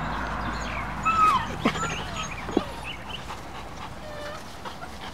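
Afghan hound puppies whimpering and yipping: a few short, high whines, one sliding down in pitch about a second in and others scattered over the next few seconds, with a couple of small clicks among them.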